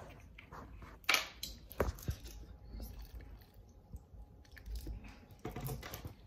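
Apple juice poured from a large plastic jug into a blender pitcher of frozen strawberry mix, a faint steady pour. Two sharp handling knocks come first, about a second in and again just before two seconds.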